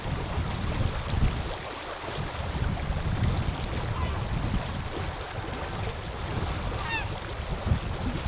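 Steady rush of flowing river water, with wind gusting on the microphone.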